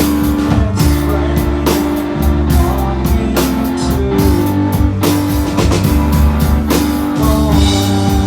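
Live rock music from a band on stage: a drum kit keeping a steady beat under loud, sustained amplified guitar-like notes, with no singing.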